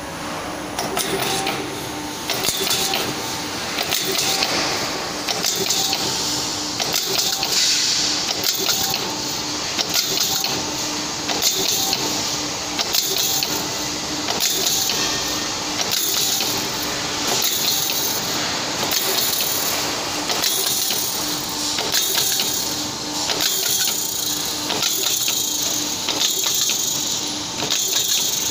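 Automatic CNC hydraulic punching machine repeatedly punching half holes in metal shelf channels, a punch stroke about every second and a half over a steady hum.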